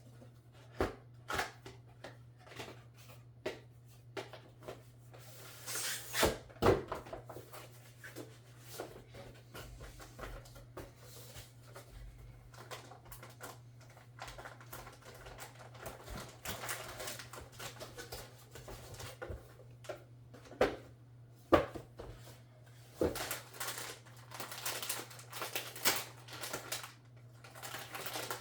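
Hands handling PC parts and their packaging: scattered clicks, taps and rustling, with a few sharper knocks, over a steady low hum.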